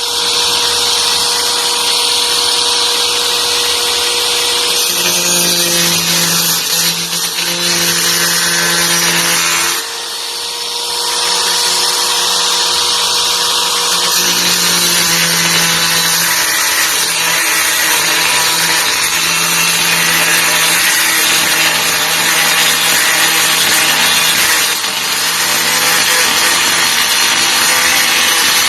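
Titanium AG710 710 W angle grinder running continuously under a durability test: a steady motor whine over loud grinding noise, its pitch shifting slightly with load, with a brief drop in loudness about ten seconds in.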